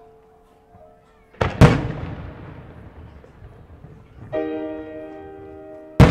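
Aerial firework shells bursting: two loud bangs in quick succession about a second and a half in, and another sharp bang near the end. Background music with held chords comes in partway through.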